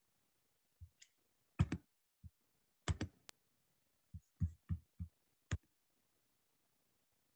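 Irregular clicks and light knocks from a computer mouse and keyboard, about a dozen in loose clusters.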